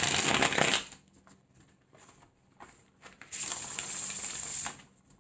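A tarot deck being shuffled: two fast rustling bursts of cards, one at the start lasting about a second and a longer one about three seconds in, with a few soft card taps between.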